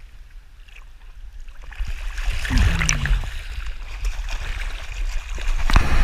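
Pool water splashing and sloshing around an action camera at the surface, with a deep rumble of water buffeting its housing; the splashing builds over the first two seconds and a sharp splash comes just before the end.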